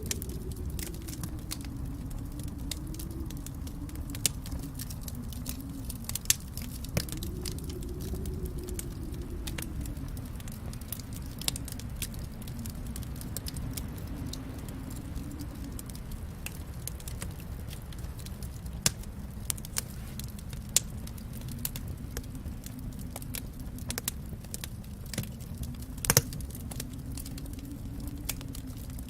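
Fireplace fire crackling: a steady low rumble of the flames under frequent small crackles, with a few louder pops scattered through, the loudest near the end.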